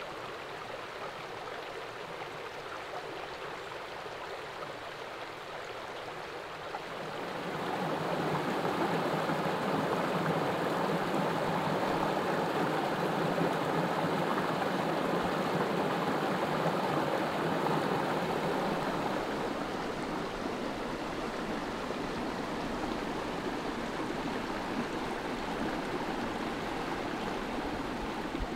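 Water of a shallow rocky stream rushing steadily over stones. About seven seconds in the rush grows louder and fuller, like water spilling down a small cascade between boulders, and it eases somewhat after about twenty seconds.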